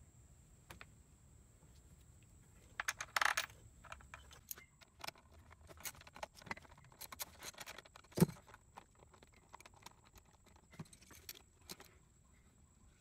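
Metal hand tools and small parts clinking and rattling in irregular bursts, with a sharp knock about eight seconds in. This is the handling of sockets, screws and parts while a scooter's throttle body and air box are refitted.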